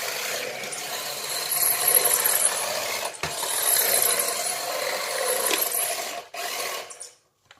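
Converted toy RC Subaru driving: its small electric motor and gearbox whir with a steady high whine while the hard tyres scrub and spin for grip on its solid, diff-less back axle. The sound cuts out briefly twice and stops near the end.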